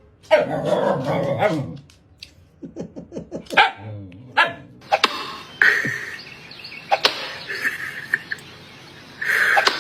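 A dog barking and vocalizing several times, starting with a long loud call and followed by shorter sharp sounds.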